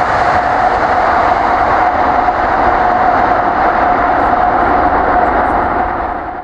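Steady, loud running noise of a vehicle in motion, with one steady tone through it, cut off abruptly near the end.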